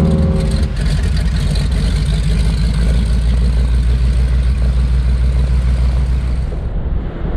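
Single-engine floatplane's engine and propeller running hard. Heard for a moment from inside the cockpit, then from the shore as a steady low rumble while the plane runs across the water and lifts off.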